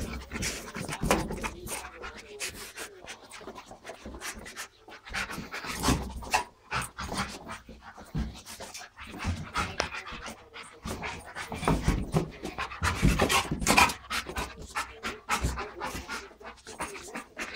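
Dog panting as it plays, with irregular knocks and scuffs from a rubber balloon being nosed and batted about.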